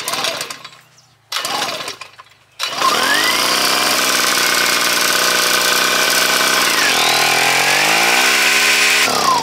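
Small portable gas generator being pull-started: two short attempts, then it catches on about the third pull and runs loudly and steadily. Its engine speed dips and recovers about seven seconds in, and it is shut off near the end, winding down. It starts and runs.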